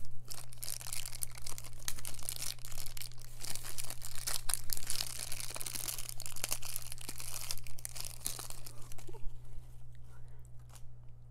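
Clear plastic bag crinkling and being torn open by hand, a dense crackle with many sharp snaps that dies away about nine seconds in, leaving only a few small clicks.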